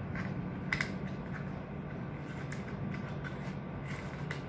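Light clicks and taps of a smartphone holder being fitted onto a tripod head by hand: several separate short clicks, the sharpest about a second in, over a steady low hum.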